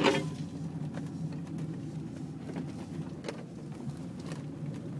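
A vehicle driving slowly over a snow-covered track, heard from inside the cabin: a steady low rumble of engine and tyres in snow, with a sharp knock at the very start and a few light clicks later on.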